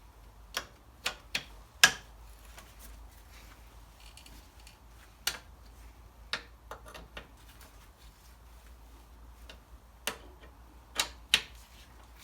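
Sharp metallic clicks and clinks, single and in small quick clusters, from a hand tool working the cylinder head bolts of a Briggs & Stratton 6 hp engine as they are nipped up before torquing.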